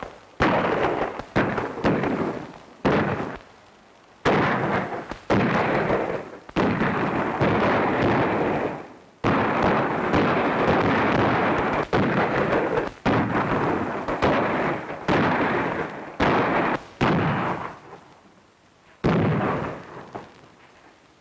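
Gunfight on an old western film soundtrack: a rapid, irregular series of gunshots, many overlapping, each with a long echoing tail. The shots thin out near the end to a single shot and then one more.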